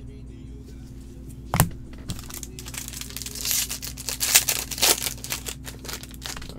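A sharp knock about one and a half seconds in, then a foil trading-card pack being torn open and its wrapper crinkled for about three seconds, with a few louder crackles.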